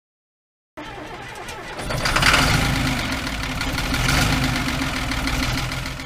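Case IH MX 215 Magnum tractor engine running, heard from inside the cab; the sound cuts in suddenly just under a second in and swells louder twice, about two and four seconds in.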